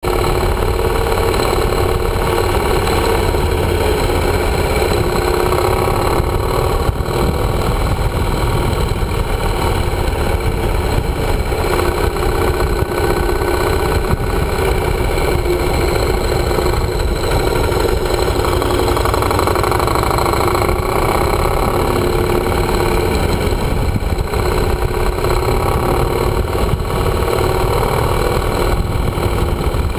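Yamaha motorcycle's engine running steadily while riding, mixed with wind and road noise on a bike-mounted GoPro's microphone.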